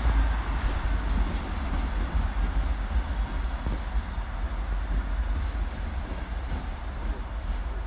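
SŽ 711 diesel multiple unit pulling away, its diesel engines running with a low rumble that slowly fades as it recedes.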